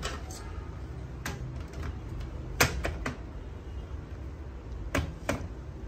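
Plastic covers of an HP LaserJet laser printer being handled and pressed into place on its frame: a series of sharp clicks and knocks, the loudest about two and a half seconds in and two more close together near five seconds, over a low steady hum.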